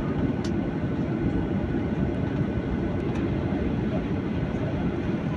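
Cabin noise of a Boeing 737-800 taxiing: a steady low rumble from its CFM56-7B engines at idle and its wheels rolling over the concrete, heard from inside the cabin. A couple of faint clicks come about half a second and three seconds in.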